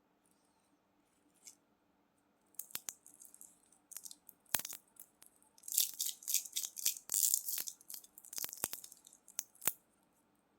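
Candy being handled close up: a run of sharp clicks and high crackles that starts about two and a half seconds in, is densest in the middle and stops near the end.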